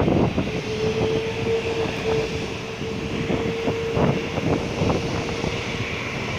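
Distant Airbus A330 jet engines running with a steady droning tone. Wind buffets the microphone with a rough rumble over it.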